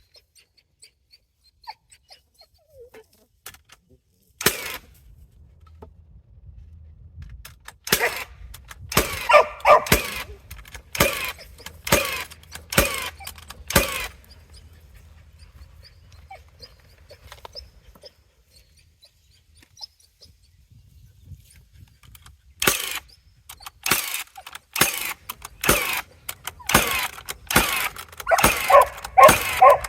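A battery-powered framing nailer firing a series of sharp shots, driving galvanized nails through cleats into 6x6 timbers. There is a run of about nine shots, a pause, then a quicker run of ten or more near the end. A dog barks among the shots.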